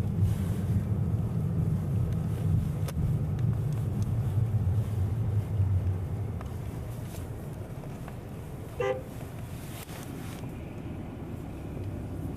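Low rumble of a car's engine and tyres, heard from inside the cabin while driving. It is louder for the first six seconds, then eases off. About nine seconds in there is one short beep.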